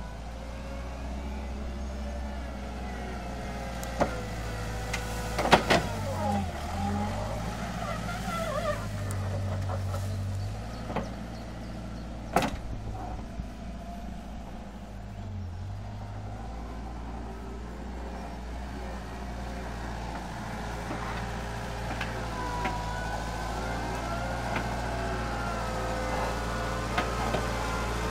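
Wheel loader's diesel engine running steadily as the machine drives and levels soil, with a handful of sharp knocks.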